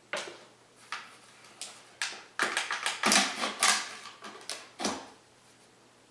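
Foil peel-off seal being torn from the top of a Pringles can: a few sharp clicks from handling the can, then a crackling rip lasting about a second and a half, then one more click.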